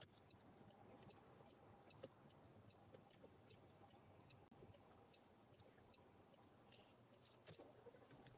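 Faint, rapid ticking of a car's turn-signal indicator, about three ticks a second, starting and stopping with the signal.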